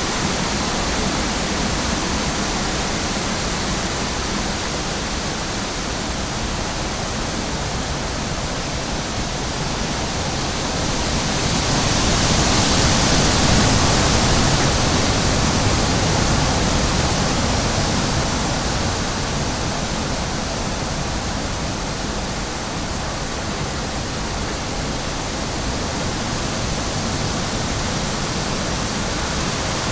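Steady rushing noise with no distinct events, swelling louder about halfway through and then easing back.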